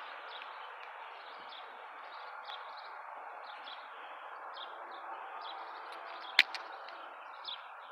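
Outdoor ambience: small birds chirping repeatedly over a steady background hiss. A single sharp click comes about six and a half seconds in.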